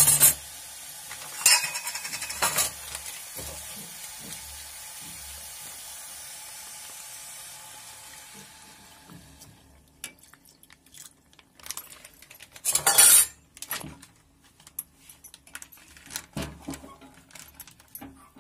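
Steel spoon clinking and scraping against a steel pot while stirring grated carrots frying in ghee, over a steady sizzle. The sizzle fades out about halfway through as milk goes into the pot. The spoon clinks and scrapes go on, loudest about two-thirds of the way through.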